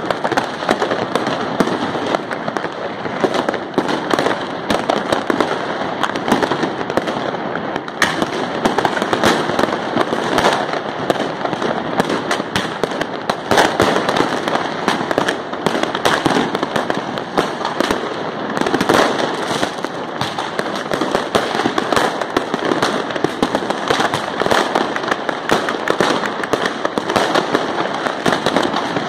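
A dense, unbroken barrage of fireworks and firecrackers going off on all sides: countless bangs and crackles overlapping with no pause.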